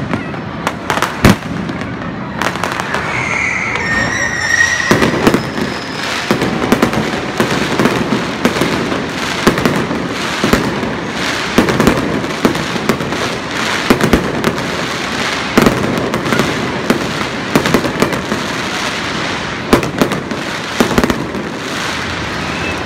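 Fireworks display: aerial shells going off overhead in quick, irregular succession, many sharp bangs over a continuous crackle.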